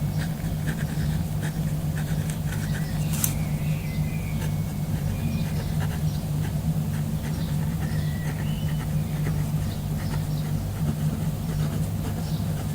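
Nature ambience of birds chirping in short, scattered whistled calls over a steady low hum, with occasional light clicks.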